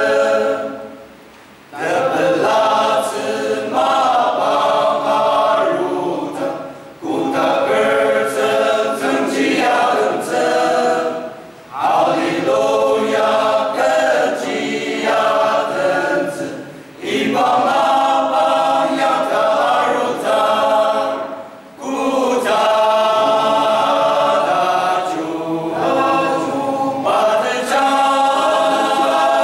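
Male-voice choir singing a church hymn a cappella, in phrases of about four to five seconds with short breath pauses between them.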